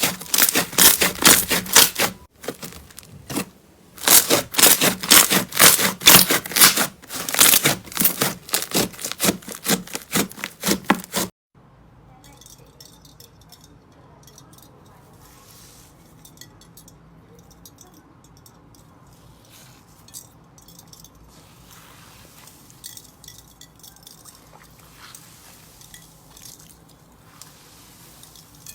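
Slime being squeezed and worked by hand, giving loud rapid crackling and popping in two long runs with a short pause between. About eleven seconds in it cuts to a much quieter clip of slime with only faint, scattered crackles.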